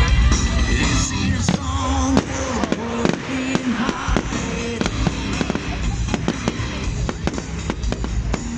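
Fireworks display going off: a rapid run of sharp bangs and crackles from bursting fireworks, with music playing along.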